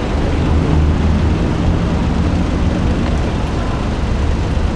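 City street traffic: a steady low rumble of vehicle engines, with no distinct event standing out.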